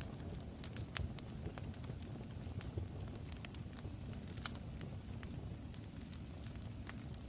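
Fire crackling: irregular sharp pops over a low steady rumble, with a faint high whistle that slides down slightly about two seconds in and then holds.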